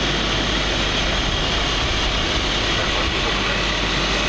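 Steady vehicle rumble: an even, unbroken engine-and-road noise with no distinct events.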